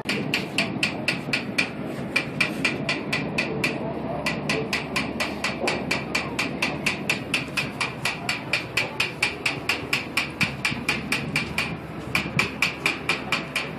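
Rapid, even mechanical clicking, about four or five sharp clicks a second, that stops briefly a few times and then starts again.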